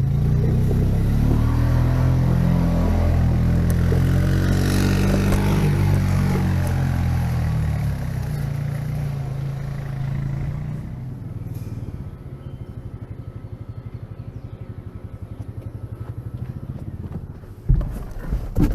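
An engine running with a steady pitch, loud at first and fading over about ten seconds to a low, pulsing idle. A few knocks come near the end.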